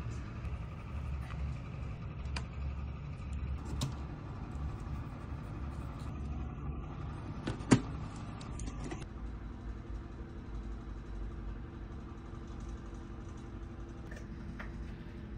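Steady low rumble of a running vehicle, with a few light clicks and one sharp knock about eight seconds in; a steady hum sets in about a second later.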